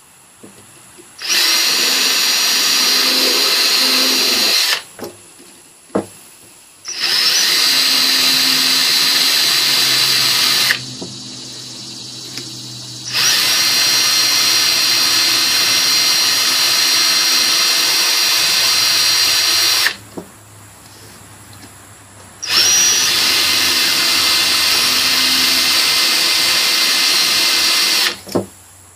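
Cordless drill spinning a short length of round chainsaw file in reverse against the chainsaw's cutters to sharpen the chain. The high motor whine comes in four runs of a few seconds each, with short pauses between them, and each run starts with a quick rise in pitch.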